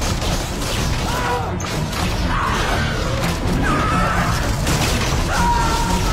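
Dense, loud rushing noise with crashing, and people screaming in panic over it, the cries wavering and gliding in pitch from about a second in.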